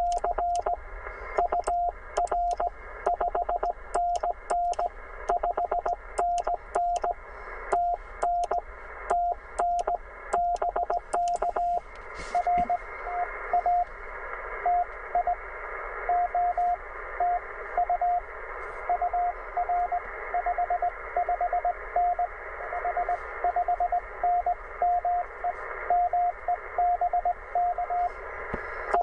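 Morse code (CW) from a Penntek TR45L HF transceiver: a single tone keyed in dots and dashes over band hiss. For the first dozen seconds the hiss cuts in and out with small clicks between the characters, then after a click the hiss runs steady under the code.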